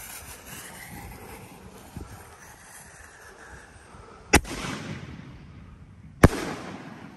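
5-inch canister firework shell: the lit fuse hisses briefly at first, then the lift charge fires with a sharp bang about four seconds in, and the shell bursts overhead with a louder bang about two seconds later.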